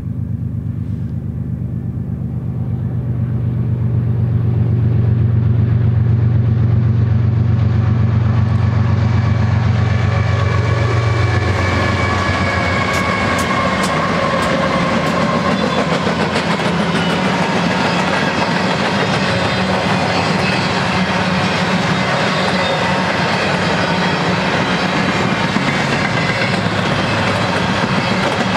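Lead GE ES44DC diesel locomotives of a freight train drone louder as they approach, and their low engine note falls away about eleven seconds in as they pass. Then a long string of empty intermodal well cars rolls by, the wheels clattering and clicking over the rail joints, with a faint steady ringing from the wheels and rails.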